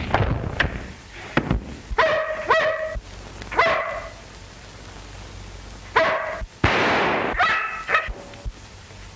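German shepherd barking repeatedly in short, sharp barks, in two bouts a few seconds apart. Knocks and thumps of a scuffle come in the first second or so, and a short harsh noise comes between the barks near the end.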